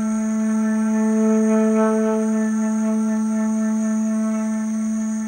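Background music: a single low note held steady, over a continuous high-pitched insect chorus from the rainforest.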